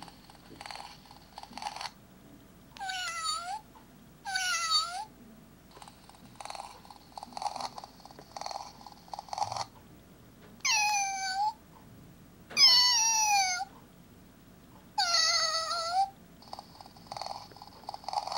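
Kitty Surprise plush toy cat's sound unit playing recorded meows, five in all, several of them alike, with a rough purring sound in the gaps between.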